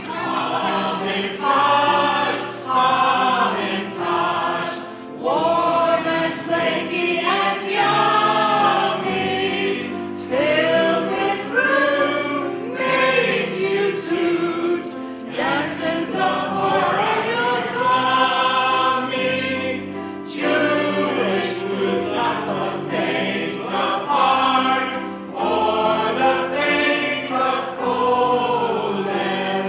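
A group of voices singing a song with instrumental accompaniment.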